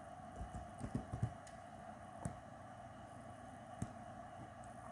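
Faint light taps of typing on a tablet, a few close together in the first second or so, then single taps about two and a quarter seconds and about four seconds in, over a faint steady hum.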